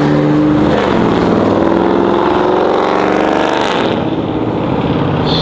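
Loud car engine revving hard, its note climbing steadily and then falling away about four seconds in.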